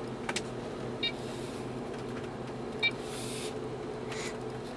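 Two short electronic touchscreen beeps from a Range Rover's infotainment screen, its audible touch feedback, about a second apart then two seconds apart, over a steady low hum inside the running car's cabin.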